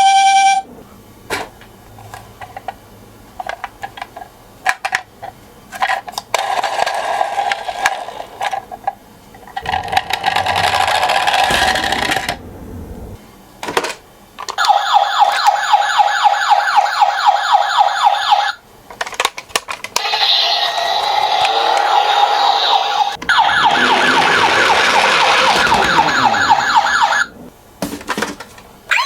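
Electronic siren sounds from a toy ambulance minicar, coming in a series of short bursts broken by clicks and sudden stops. There are two longer stretches of fast-warbling siren, one about halfway through and one near the end.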